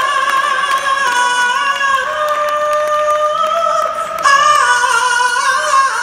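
A woman singing live into a microphone, holding long, high sustained notes. Her pitch steps up about four seconds in.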